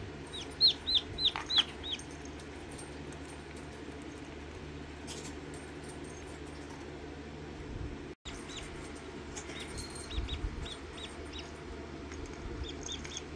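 Newly hatched Rhode Island Red chick peeping: a quick run of about five loud, short, high peeps in the first two seconds, then fainter runs of peeps about ten seconds in and again near the end.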